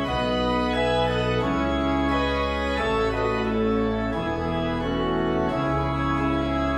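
Instrumental passage of a choral score: sustained keyboard chords held steady and changing about once a second, with the choir parts silent.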